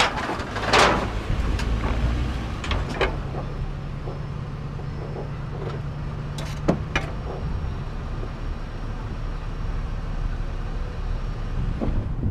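A vehicle engine idling steadily, with a few short, sharp knocks and clicks over it, the strongest just under a second in.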